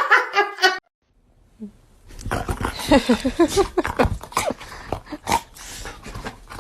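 A dog making growly, grumbling calls in short pitched bursts, with knocks and bumps among them. Before that, a loud human voice cuts off under a second in, followed by a brief silence.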